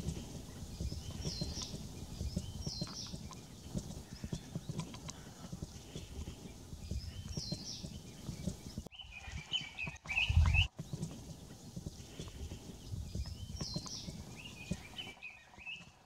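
Small forest songbirds calling: short high chirps repeating every few seconds, and twice a brief twittering trill. Under them runs a steady low rumble, with a loud low thump about ten seconds in.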